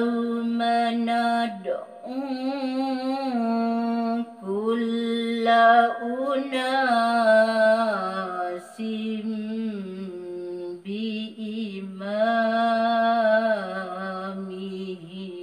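A woman reciting the Qur'an in the melodic qiroah (tilawah) style: long held notes with wavering, ornamented turns of the melody, in several phrases with short pauses between them.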